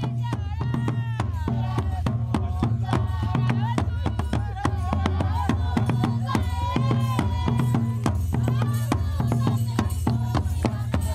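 Traditional African dance music: fast, steady percussion strokes over a low bass, with voices singing above.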